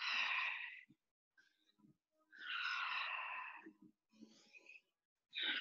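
A woman exhaling hard through the mouth in time with exercise reps, three long breaths out about two and a half seconds apart, the last starting near the end.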